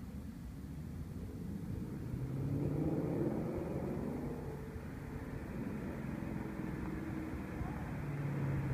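2014 Mustang GT's 5.0 V8 through a Borla ATAK cat-back exhaust: a deep exhaust rumble heard from down the street. It swells about two to three seconds in, eases, then grows louder again near the end as the car comes closer.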